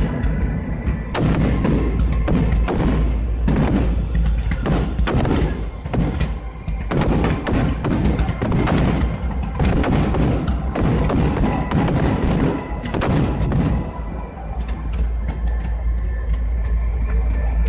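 Aerial fireworks bursting in quick succession, a dense run of booms and crackling reports over a deep rumble, with music playing alongside.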